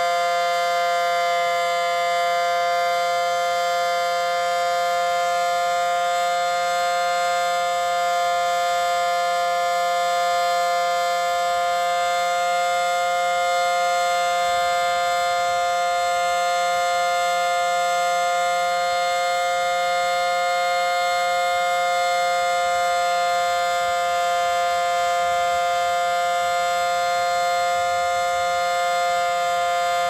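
Federal Signal Model 5T tornado siren sounding a steady alert tone at full speed during a test: two steady tones together in a chord, holding pitch and level without rising or falling.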